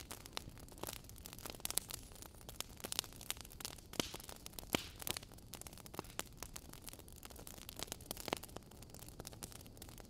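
Wood fire crackling: irregular sharp pops and snaps, a few louder ones near the middle, over a faint steady hiss.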